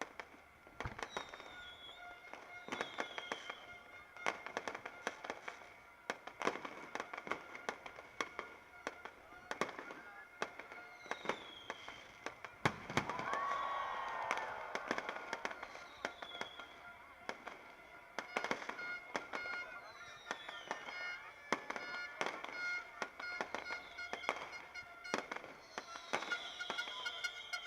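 Fireworks going off continuously, a rapid run of bangs and crackles with several short falling whistles, swelling to a louder stretch about halfway through.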